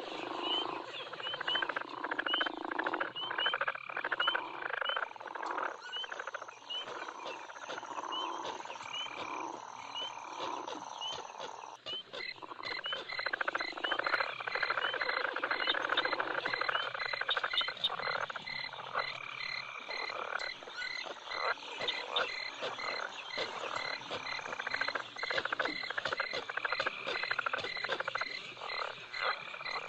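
A chorus of frogs croaking densely, with short high chirps repeating throughout. About twelve seconds in, a steady high tone drops out and a rapid pulsing trill takes over.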